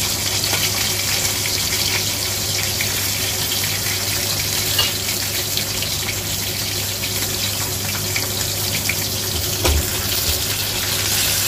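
Whole yellow croaker frying slowly in oil in a stainless steel wok: a steady crackling sizzle. Near the end the wok is shifted on the burner with a single light knock.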